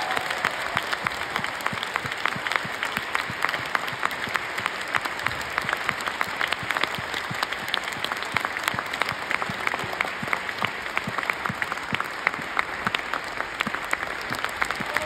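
Theatre audience applauding steadily, a dense wash of clapping with some sharp claps close by standing out.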